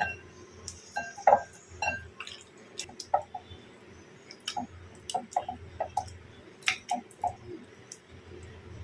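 Irregular light clicks, taps and knocks of utensils and containers being handled while preparing food.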